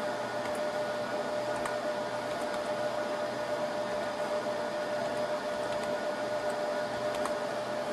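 Server cooling fans running steadily with a constant whine, with a few faint keyboard clicks.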